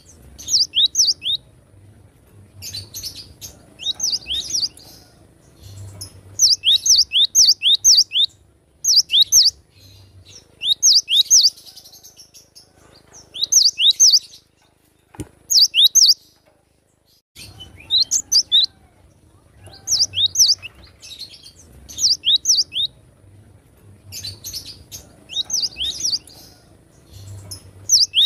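Cinereous tit (gelatik batu) singing: repeated short phrases of three to five quick, high notes, each falling sharply in pitch, a phrase every second or two, with a short pause about halfway through.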